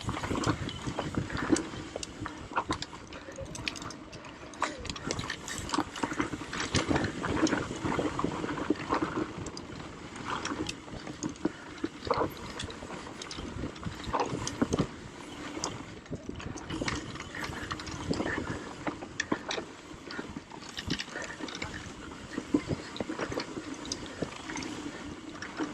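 Mountain bike descending a dirt trail: steady tyre noise over the dirt, with frequent sharp rattles and knocks as the bike hits bumps.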